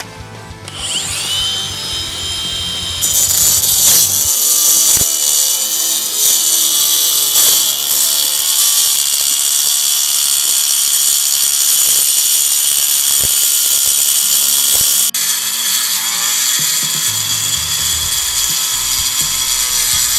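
Angle grinder spinning up with a rising whine about a second in, then cutting into limestone with a loud, steady high-pitched grinding, throwing up rock dust.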